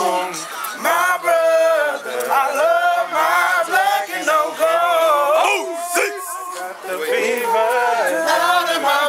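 Group of men singing and chanting a fraternity chant together, unaccompanied, with a voice sliding in pitch about five and a half seconds in.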